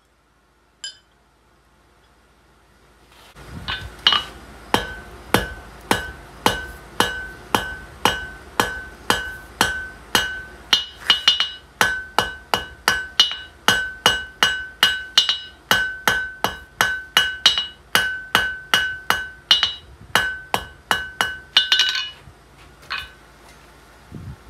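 Blacksmith's hand hammer striking hot iron on an anvil while forging a nail, a steady run of about two blows a second, each with a bright ring from the anvil. The hammering starts a few seconds in and stops near the end.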